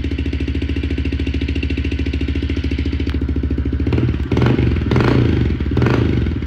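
A Honda CRF110F's small air-cooled single-cylinder four-stroke engine idles steadily through an FMF slip-on exhaust, with exhaust leaking out of the slip-on joint, which has no clamp. Over the last couple of seconds the engine gets louder in three surges.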